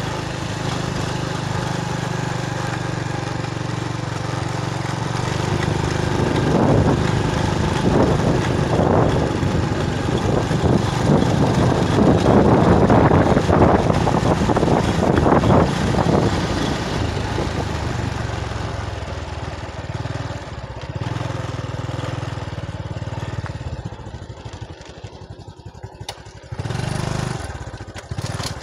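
Motorbike engine running steadily while riding, with wind rushing over the microphone; the wind noise is loudest in the middle, and near the end the engine sound drops and breaks up for a moment.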